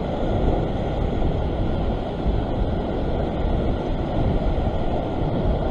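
Rough ocean surf washing over a rock ledge, with wind buffeting the microphone: a steady rushing noise that is heaviest in the low end.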